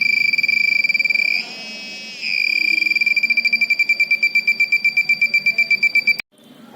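Piezo buzzer driven by a 555 timer circuit: a high, steady electronic tone that briefly changes character about a second and a half in, then breaks into rapid beeping, several beeps a second, and cuts off suddenly about six seconds in.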